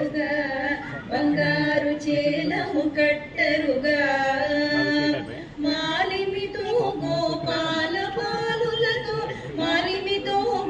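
A song sung by women's voices, with long held notes that bend in pitch.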